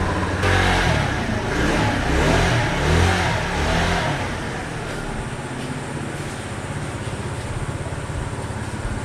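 Tao Tao 50cc scooter engine running on its new throttle cable: revved up and down a few times over the first four seconds, then settling to a steady idle.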